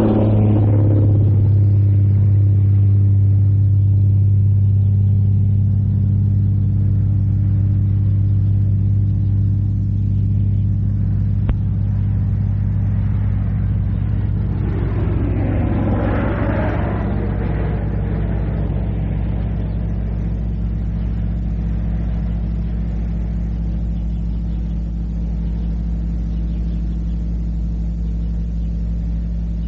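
A steady, loud, low mechanical hum, like an engine running, on an old cassette recording, with a brief louder, rougher sound rising over it about halfway through.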